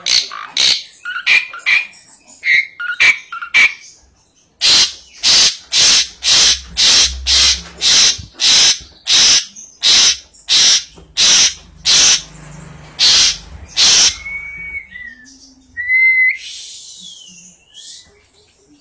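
Asian pied starling (jalak suren) calling. Short chattering notes give way to a long run of harsh, evenly spaced calls, about two a second. A couple of short whistled notes follow near the end.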